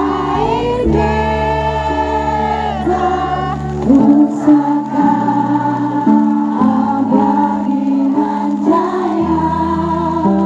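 A female singer performs a song into a microphone, with long held notes over a backing track.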